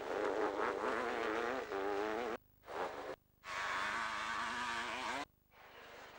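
500cc two-stroke motocross bikes racing, their engines whining and rising and falling in pitch as they rev. The sound drops out abruptly three times.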